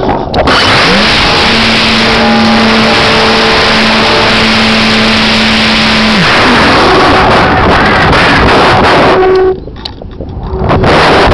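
Strong wind buffeting the microphone of a camera riding on a GWS Slow Stick RC plane, over the steady drone of the plane's electric motor and propeller. The motor's pitch rises about a second in, holds, then winds down about six seconds in. The wind noise drops away briefly near the end.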